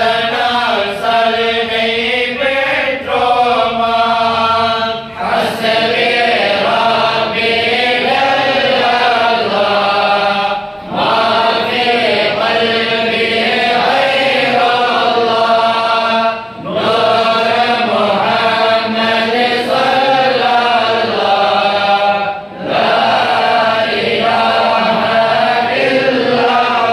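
A group of men chanting a devotional recitation in unison, a melodic line sung in long phrases with a short break for breath about every five or six seconds.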